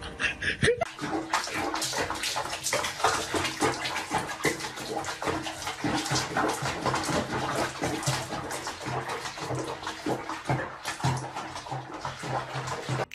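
Water splashing and sloshing in a basin of foamy bath water as a cat sits and shifts in it.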